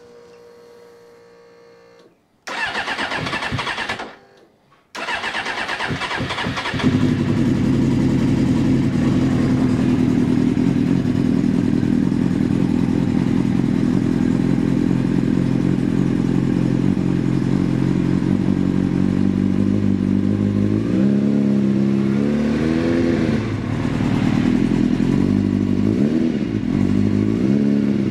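1996 Suzuki GSX-R750 SRAD's inline-four engine cranked on the electric starter for about a second and a half without starting, then cranked again and catching about seven seconds in. It settles into a steady idle, then is blipped on the throttle a few times near the end, the revs rising and falling.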